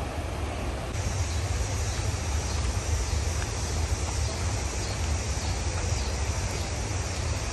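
Steady rush of water over river rapids, with a low rumble of wind on the microphone; the hiss brightens about a second in.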